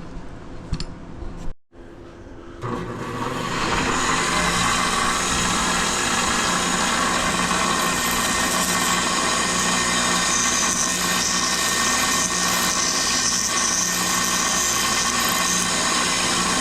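A few light clicks and clatter, then after a short break an electric power tool starts about three seconds in and runs steadily. It is shaping metal into a homemade hook puller for pulling a transmission seal.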